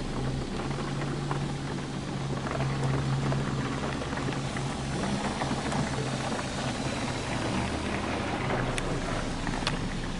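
Belanger FreeStyler car wash heard from inside the car: water spraying onto the glass and body over a steady low motor hum, with a few sharp taps on the car near the end.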